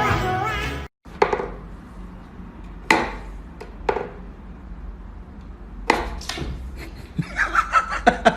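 A few sharp knocks and taps over a faint hiss, then near the end a quick run of short, high-pitched squeaky sounds.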